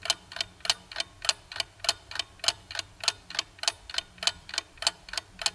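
Clock-ticking timer sound effect counting down the time to answer: even tick-tock, about three ticks a second, alternating louder and softer.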